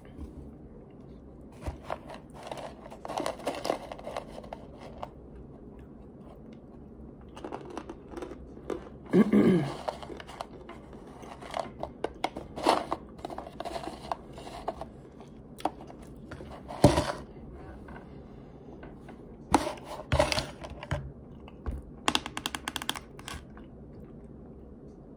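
A plastic jar of starch being handled and tipped: scattered clicks, scrapes and rustles of the plastic and the powder inside, with a louder sliding scrape about nine seconds in.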